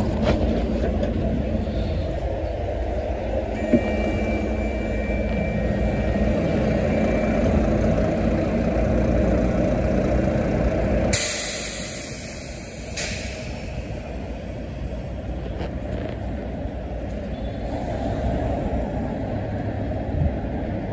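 London bus engine running at the stop, then a loud hiss of compressed air lasting about two seconds, starting about eleven seconds in, after which the bus engine sound drops away as it pulls off.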